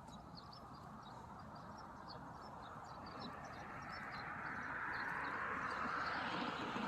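Small birds chirping in short, repeated high notes, while the noise of an approaching vehicle grows steadily louder from about halfway through.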